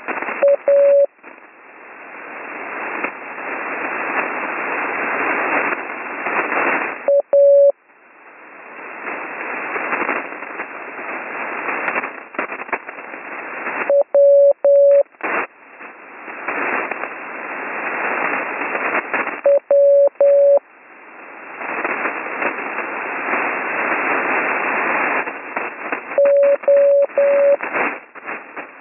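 Morse code tones at one steady pitch, sent slowly, one letter about every six seconds, spelling out "A World". They are heard over HF radio under a loud hiss of band noise that cuts out during each letter and swells back up between them.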